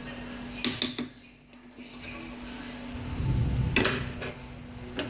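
Metal spoon clinking and scraping against a metal cooking pot while stirring rice and peas: a few sharp clinks, with a dull low rumble a little after halfway, over a steady low hum.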